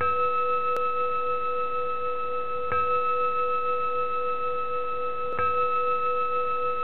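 Intro sound effect of an animated logo: a steady, bell-like ringing tone, struck afresh three times about two and a half seconds apart, with one short click about a second in.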